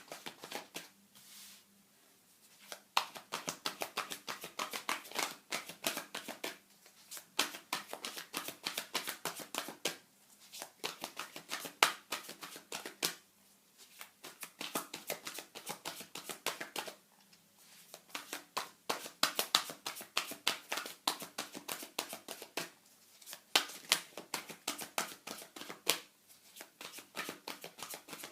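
Tarot cards being shuffled by hand: runs of rapid riffling clicks that come in bursts of several seconds, each broken off by a short pause.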